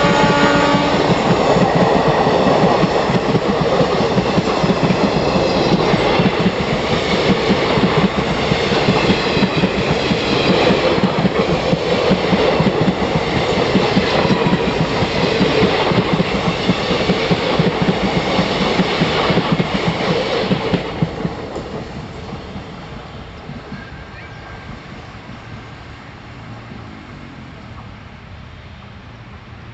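ICF passenger coaches of an express train running past on the rails, a steady rumble with rapid wheel clatter. About twenty seconds in the sound drops off and fades as the last coach draws away.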